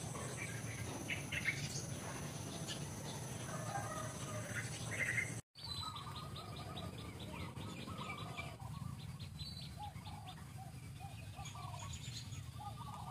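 Forest birds chirping and calling in short scattered notes, with a fast ticking trill for a few seconds after the sound cuts out briefly about five and a half seconds in. A steady low rumble runs underneath.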